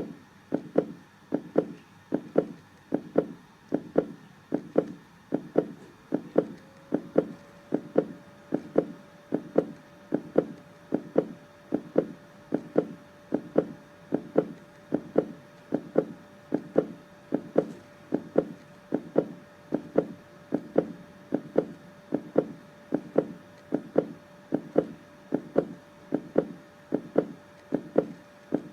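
Human heartbeat in a steady, even rhythm of low double thumps (lub-dub), a little over one beat a second.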